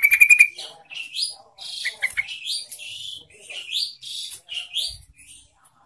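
Yellow-vented bulbul singing: a fast rattling trill at the start, then a string of short rising notes repeated over the next few seconds.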